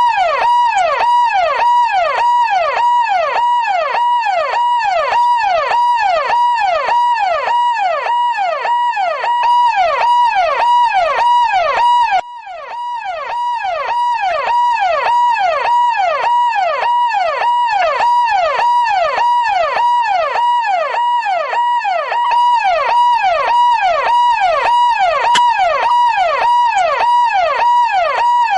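Police car siren sounding continuously: a quick rise-and-fall sweep repeating over and over, about one and a half times a second, over a steady high tone. The level drops abruptly about twelve seconds in, then builds back up over a couple of seconds.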